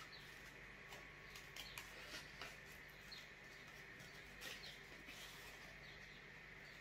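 Faint, irregular snips and clicks of scissors cutting a small flower shape out of thin white card.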